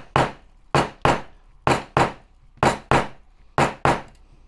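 A small hand hammer tapping a part home in a 1/6 scale Armortek M26 tank's metal drive case assembly. It gives sharp strikes, mostly in quick double taps about once a second.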